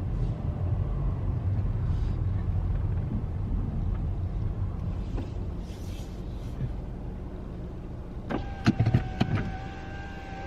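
Car cabin rumble as the car rolls slowly and eases off. Near the end come a few clicks, then a car's power-window motor starts a steady whine.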